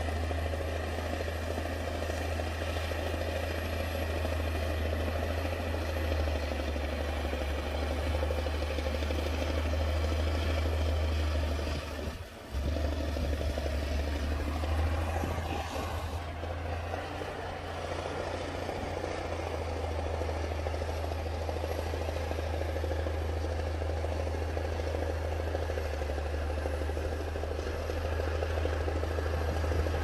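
Bulldozer's diesel engine running steadily with a low drone, with a brief dip about twelve seconds in.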